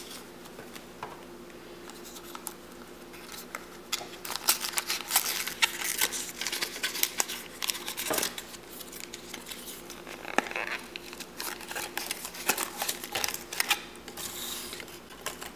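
A small plastic toy shopping basket and its packaging being opened by hand: irregular clicks, scratches and crinkles, over a faint steady hum.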